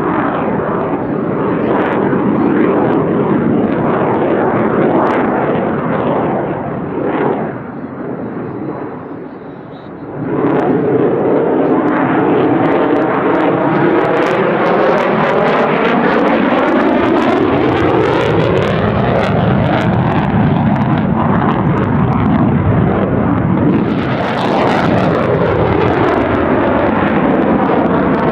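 Jet noise from an F-35A Lightning II's single Pratt & Whitney F135 afterburning turbofan as the fighter manoeuvres overhead: a loud, steady rush with sweeping, phasing tones that rise and fall. It dips for a few seconds about seven seconds in, then surges back, growing harsher near the end as the jet climbs with its afterburner lit.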